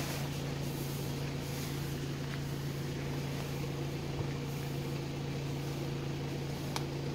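Car engine idling with a steady, even hum that holds one pitch throughout.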